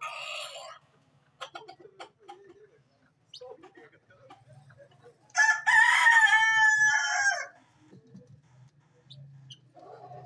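Poultry calling: one loud, drawn-out call lasting about two seconds in the middle, with a softer harsh call near the start and scattered scratchy clicks.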